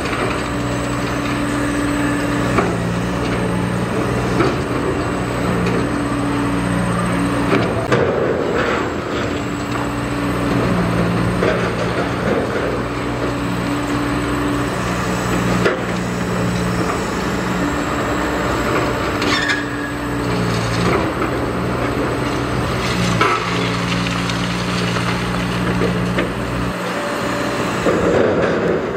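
Hydraulic demolition excavator's diesel engine running under load while concrete is crushed and broken, with crunching, cracking and falling debris. Several sharp knocks of concrete breaking stand out above the engine.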